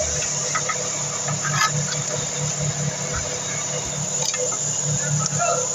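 Engine idling steadily with an even low pulsing hum, and a few faint clicks over it.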